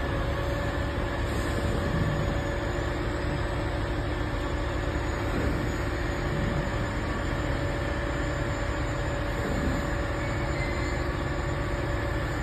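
Heavy truck engine running steadily, a constant low rumble with a thin, even whine above it.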